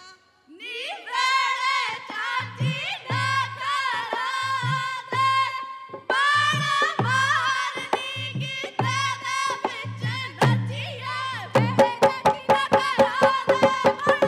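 Punjabi Gidda folk song: women's voices sing a bending melody over a steady low hand-drum beat, starting after a brief pause. About twelve seconds in, a quicker run of sharp rhythmic strikes joins the singing.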